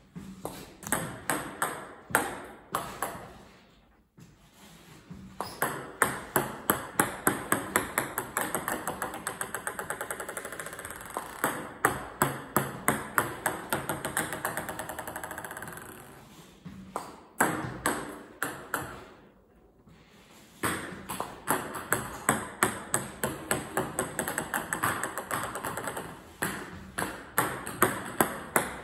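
Table tennis balls clicking sharply off the racket and the table, many in a row, with runs of quickening bounces as balls settle on the table.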